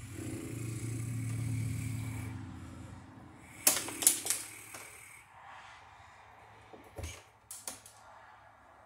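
Hand wire strippers snapping and clicking on copper house wire: two sharp snaps close together about four seconds in, then a few lighter single clicks near the end. A low steady hum fills the first couple of seconds.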